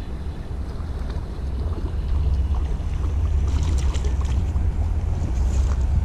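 Wind buffeting the microphone: a steady low rumble that grows slightly louder, with a few faint brief crackles about halfway through.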